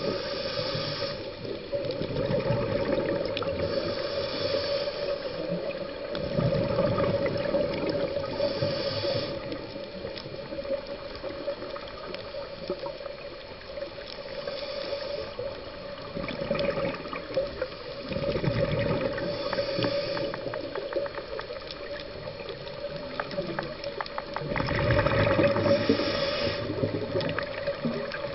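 Scuba diver breathing through a regulator underwater: a short hiss on each inhale, then a low rumble of exhaust bubbles on each exhale, repeating about every five to six seconds.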